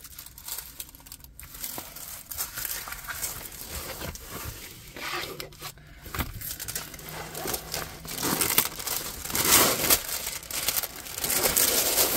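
Clear plastic protective film on a diamond painting canvas crinkling as the canvas is handled and shifted around, with louder crinkling about eight to ten seconds in and again near the end.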